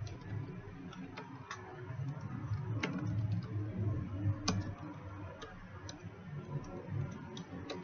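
Computer keyboard keystrokes clicking at an uneven pace as a short line of text is typed, over a low steady hum.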